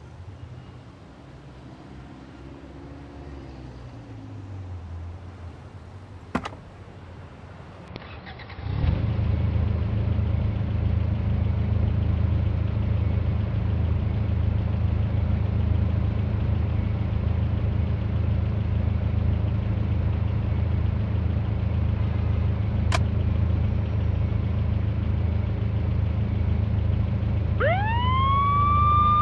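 A motor vehicle engine starts about a third of the way in and runs steadily. Near the end a siren wails up in pitch and holds.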